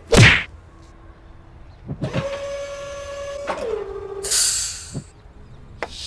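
Dubbed-in comic machine sound effects: a loud whoosh-and-hit near the start, then a motor whine that holds one pitch and drops lower, a short burst of hissing air about four seconds in, and a couple of sharp clicks.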